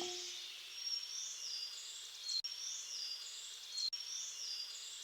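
Faint, high bird-like chirps in a short stepped-down phrase, repeating the same way about every one and a half seconds, each with a small click, over a soft hiss. The last of a music outro fades out at the very start.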